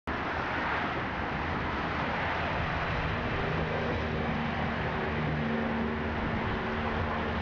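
Steady outdoor background noise, an even hiss and rumble with a faint low hum from about three seconds in; it starts abruptly with the cut to the street scene.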